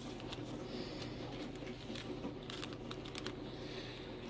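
Paper seed envelopes and a small plastic bag of squash seeds rustling and crinkling as they are handled, with scattered light clicks.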